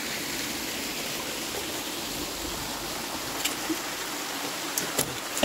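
A small forest waterfall and stream rushing steadily, with a few light clicks near the end.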